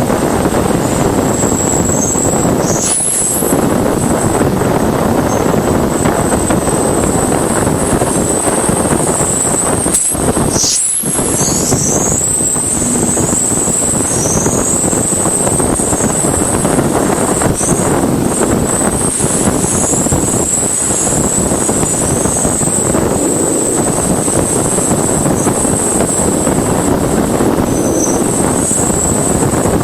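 Voyager 1 plasma wave instrument recording from Jupiter's magnetosphere, played as audio: a steady, loud rushing hiss with a thin high tone above it, broken by many short falling chirps. There are brief dropouts about three seconds in and again around ten to eleven seconds in.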